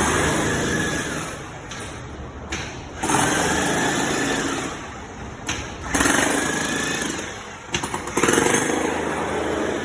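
Jackhammer chiseling into a concrete floor to dig out a tub drain that was buried under the pour. It runs in four bursts of about two seconds each, with short pauses between.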